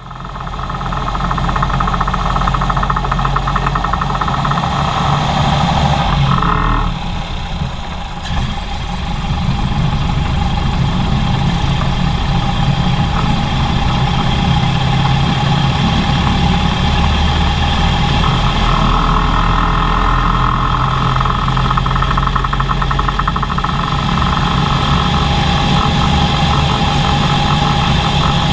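Ford Model A four-cylinder engine running roughly and misfiring, briefly quieter about six to eight seconds in. The misfires come from a clogged fuel line leaving the mixture too lean, which sets off explosions in the exhaust.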